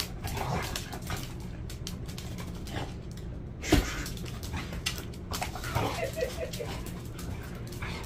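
Two Jindo dogs play-fighting, scuffling against each other on the concrete with whines and yips. There is a loud sudden thump about halfway through, and a short run of pulsed whining near the end.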